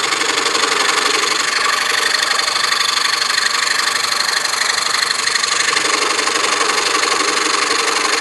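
DeWalt scroll saw running and cutting through a stack of taped-together wood layers, a steady, even mechanical sound.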